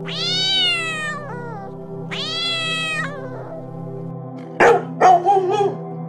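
A cat meowing twice: two long drawn-out meows about a second each, arching up and then down in pitch, over steady background music. Past the middle a dog gives a few short, sharp barks.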